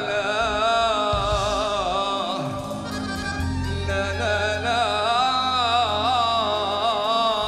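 Live band music: an ornamented lead melody with vibrato, joined by a deep bass line about three seconds in.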